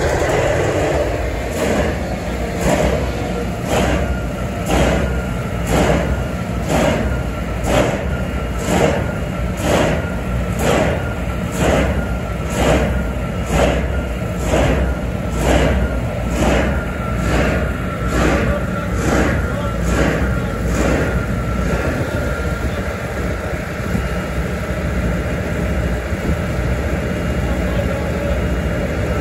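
Engine of a large trailer-mounted, containerized diesel generator set running with a rhythmic surge, about once a second, that settles into a steadier run after about twenty seconds. A faint whine sinks slowly in pitch.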